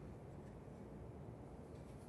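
Near silence: faint room tone with a low, even rumble.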